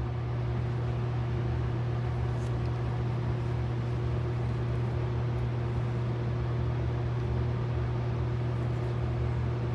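Steady low machine hum with an even drone and no change in pitch, and a faint click about two and a half seconds in.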